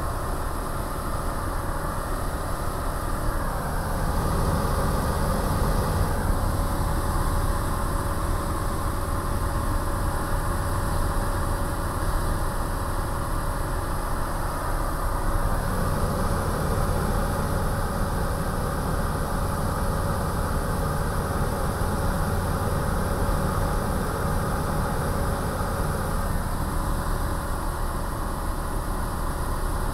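Single-engine light aircraft's piston engine and propeller running steadily in cruise, heard from inside the cockpit as an even drone with a constant hum.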